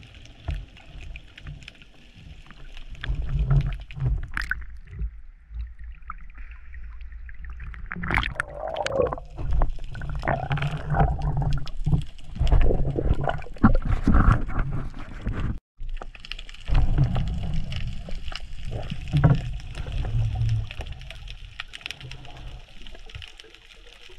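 Underwater sound through a GoPro during a spearfishing dive: water rushing and gurgling around the camera, with many short knocks and clicks of gear against it. The sound cuts out for an instant about two-thirds in.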